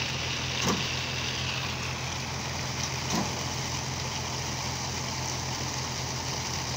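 Diesel truck engine idling steadily with a low hum, under a steady hiss and a couple of short knocks.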